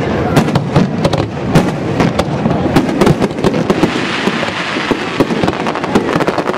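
Fireworks display: a dense, continuous run of aerial shell bursts and cracks, with a hiss swelling about four seconds in as rising comets and bursts overlap.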